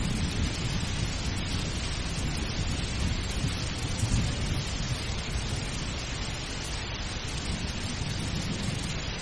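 Steady rain falling, with low rumbling thunder underneath that swells about four seconds in.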